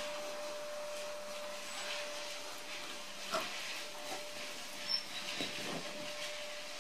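Steady background hiss with a faint, thin, steady whine, broken by a few short faint sounds from about three to six seconds in.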